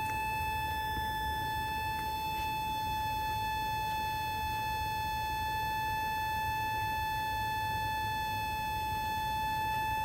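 Miniature tornado siren from Etsy running at a steady speed: one high, even tone that holds its pitch throughout.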